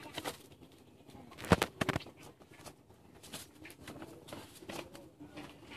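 Plastic tarp rustling and knocking as a dog rolls over and scrambles on it, with two sharp knocks a moment apart about a second and a half in.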